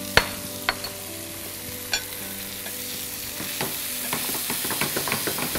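A chicken stroganoff with mushrooms and tomato paste sizzling in a frying pan while a utensil stirs it. The utensil clicks sharply against the pan a few times, then a quicker run of small stirring clicks follows in the second half.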